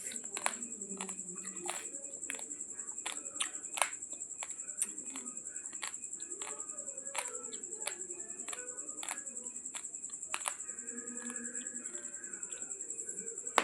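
Irregular, sharp crunches of raw long-grain basmati rice being chewed, a few louder than the rest, over a steady high-pitched whine.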